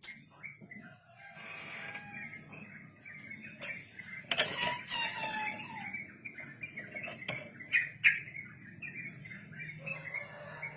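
Yellow-vented bulbul (trucukan) singing a long, fast, chattering 'ropel' song, with a louder harsh stretch about four seconds in and a few sharp clicks.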